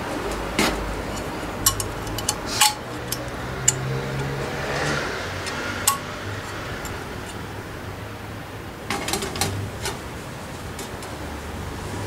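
Light metal clinks and taps as the wire grate and frame of a stainless-steel folding stove stand are handled, with a cluster of clinks about nine seconds in as an alcohol stove in a metal windscreen trivet is set down inside it. A steady low rumble runs underneath.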